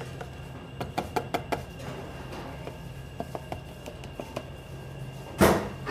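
Scattered light knocks and clicks of kitchen utensils and containers against stainless steel bowls over a steady low hum, with one brief louder noise near the end.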